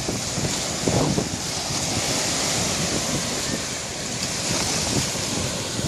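Sea waves washing onto the beach, with wind buffeting the microphone: a steady rushing noise that swells and eases slightly.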